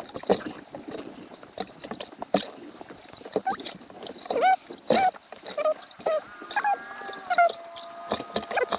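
Water splashing and dripping with sharp slaps and knocks as caught crappie are handled to be counted. In the second half, squeaky, gliding high-pitched sounds join in, some of them held.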